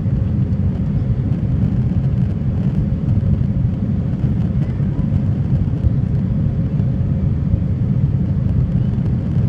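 Airbus A320 cabin noise while climbing after takeoff: the jet engines and airflow making a steady low rumble, heard from a window seat beside the wing.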